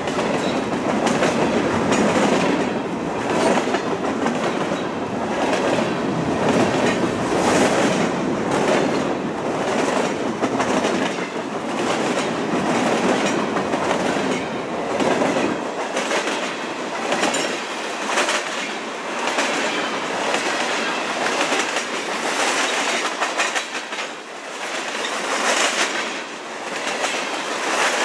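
Freight train's gondola cars rolling past close by, steel wheels clacking over the rails in a steady rhythm over a continuous rumble of wheel and rail noise. The deepest part of the rumble thins out a little past halfway.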